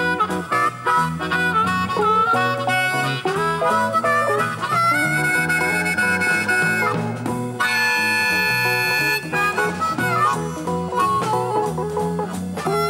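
Amplified Chicago blues harmonica played through a microphone, leading a band of electric guitar, bass guitar and drums. The harp bends notes and holds long chords in the middle, over a steady shuffling rhythm.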